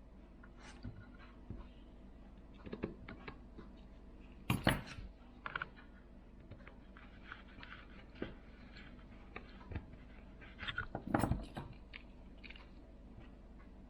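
Scattered small clicks, taps and scrapes of small tools and phone parts being handled during smartphone repair, with two sharper clacks about four and a half seconds in and about eleven seconds in.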